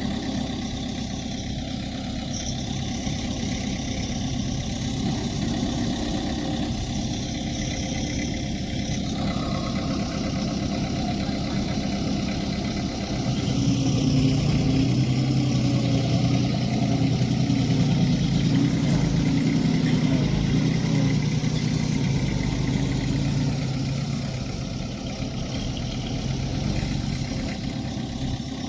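Heavy earthmoving machine's diesel engine running, growing louder and deeper about halfway through and easing back a few seconds before the end.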